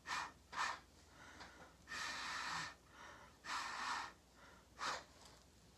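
A person blowing through a drinking straw onto wet acrylic pour paint on a tile, in about five breathy puffs: two short ones at the start, two longer ones in the middle and a short one near the end. The blowing spreads the paint out across the tile and opens up cells in it.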